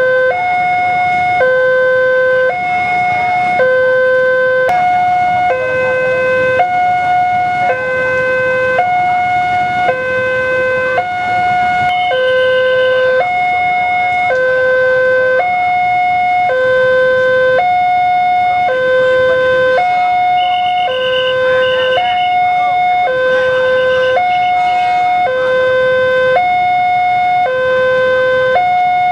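Railway level-crossing warning alarm sounding a steady two-tone electronic signal that alternates between a low and a higher note, changing about every two-thirds of a second. It warns that a train is approaching the crossing.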